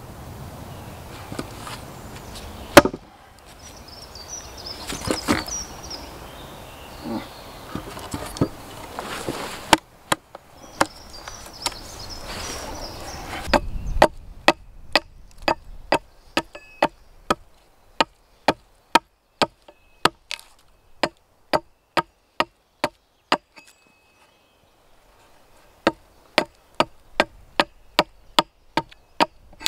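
Small axe chopping into the end of a peeled log on a chopping block, hewing a notch. At first the strokes are scattered among a rustling, noisy stretch. In the second half comes a quick steady run of sharp chops, about two a second, broken by a short pause.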